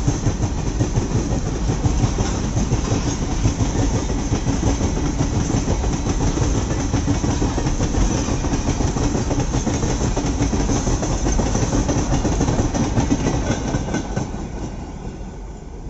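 Long freight train of covered goods wagons rolling past close by: a steady heavy rumble with the rapid clatter of wagon wheels over the rails. The sound fades away in the last couple of seconds.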